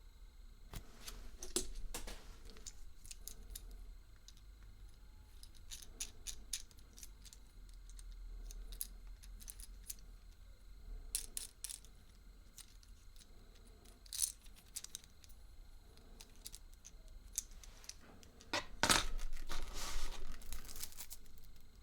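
Hands handling a Kinder Surprise egg and its small plastic parts: scattered light clicks and taps of plastic, with a louder spell of crinkling and rustling from about three-quarters of the way through.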